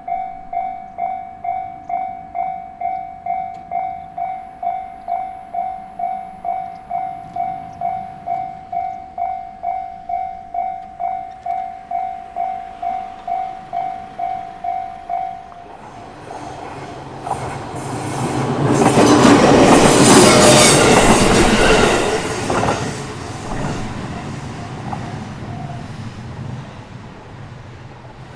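Japanese level-crossing warning bell ringing its electronic ding about twice a second, stopping a little over halfway through. A JR Minobu Line train then passes over the crossing: wheel and rail noise swells to its loudest a few seconds later and fades away.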